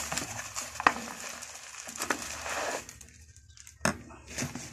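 Plastic bubble wrap crinkling and rustling as it is pulled and torn off a parcel for about three seconds, then a single sharp click a little before the end.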